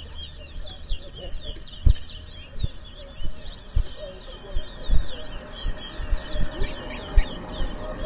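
Caged towa-towa finches (chestnut-bellied seed finches) singing head to head in a whistling contest: a fast, continuous run of high chirped notes. Several short, dull low thumps stand out above the song.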